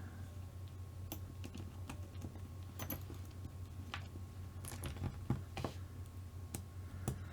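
Scattered light clicks and taps of small screws, spacers and plastic kit parts being handled and fitted during RC car assembly, about eight sharp ticks spread irregularly over a steady low hum.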